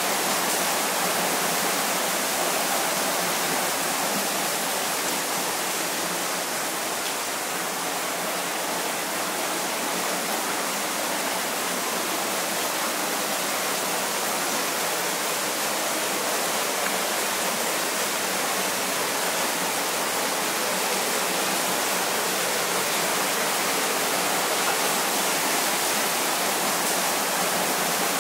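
Water dripping and trickling off the moss-covered rock walls of a narrow canyon into a shallow pool: a constant, even, rain-like hiss.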